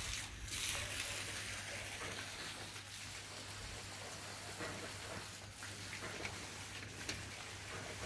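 Steady outdoor hiss with a few faint clicks and no voices.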